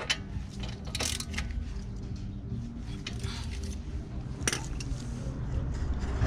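Light metallic clinks and taps of tools and brake parts being handled, a few scattered strokes with the sharpest about a second in, over a steady low hum.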